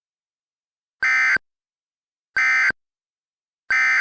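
Emergency Alert System end-of-message signal: three identical short bursts of buzzy digital data tones, about one and a third seconds apart, marking the end of the alert.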